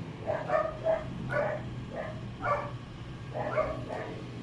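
A dog barking in a run of short barks, roughly one a second.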